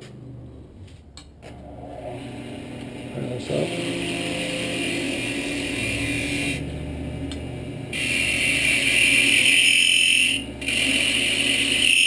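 Small wood lathe running while a skew chisel cuts a poplar blank. The cut starts about three and a half seconds in, drops out briefly near seven seconds, and comes back louder from eight seconds with a high-pitched whine. The whine is harmonics from the chisel chattering, a sign that the cut will leave chatter marks on the wood.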